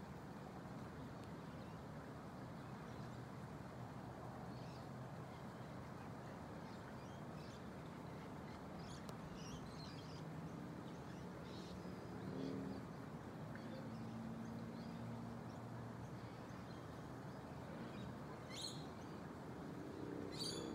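Faint outdoor ambience: a steady low background rush with small birds chirping now and then, a quick pair of chirps near the end, and a low droning tone for a few seconds in the middle.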